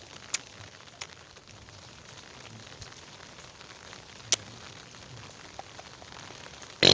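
Steady rain falling, with a few sharp ticks of drops striking close by. A sudden loud voice bursts in at the very end.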